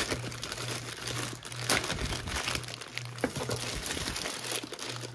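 Plastic mailer bag being torn open and crumpled by hand: continuous crinkling with a couple of sharper crackles.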